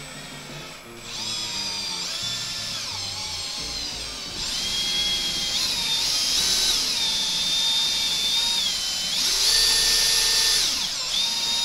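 Cordless drill spinning a drill-powered water pump, its motor whining and speeding up and slowing down several times as the trigger is worked. It is pumping water out through a hose into a tub.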